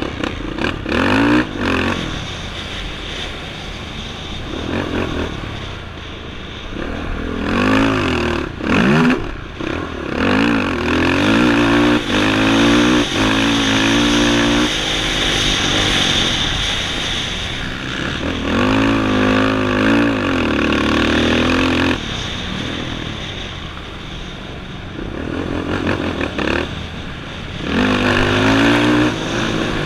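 Off-road racing engine heard from onboard, revving up and down repeatedly as it is worked through the gears, held at high revs for a few seconds at a time on the straights and falling back between.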